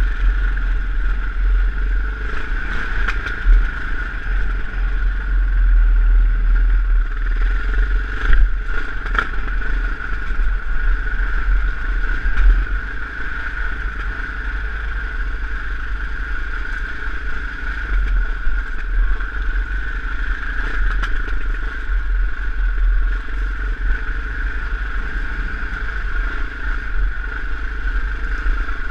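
KTM off-road motorcycle engine running steadily under throttle on a rough, stony track. A few sharp clatters stand out, the loudest about 8 seconds in.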